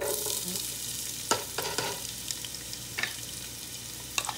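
Chopped onion dropped into hot oil in a pot, setting off a steady sizzle that starts at once. A few sharp clicks cut through it.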